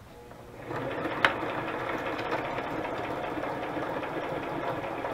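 Electric sewing machine starting up under the foot pedal just under a second in and then running steadily, stitching around a paper tag pocket. A sharp click comes just after it starts.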